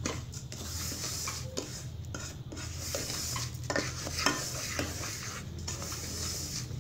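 A wooden spatula stirring and scraping dry roasted semolina and sugar around a steel pot: a continuous scratchy rustle with repeated short scrapes against the metal.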